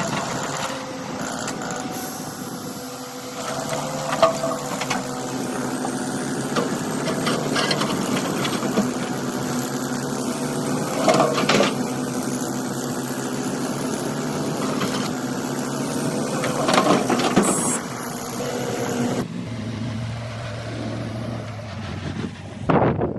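Excavator engine running steadily, with the bucket scraping and knocking against rock in a few clattering bursts. The sound changes abruptly to a duller, quieter run near the end, followed by sharp knocks.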